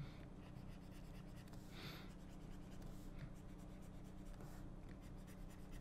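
Faint scratching and tapping of a pen stylus on a drawing tablet while cartoon frames are drawn, over a low steady hum.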